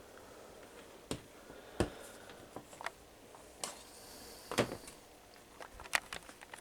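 Handling noise: a handful of separate light knocks and clicks from the switched-off box fan being moved and handled, the sharpest about two seconds and six seconds in.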